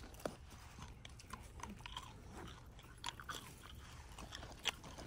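Faint crunching and small clicks of someone chewing a snack near the microphone, over a low steady hum.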